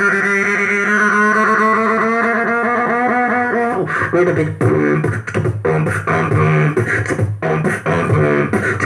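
Man beatboxing into a handheld microphone: a long held, buzzing pitched tone for the first few seconds, then a run of quick rhythmic percussive beats with a low pulsing bass.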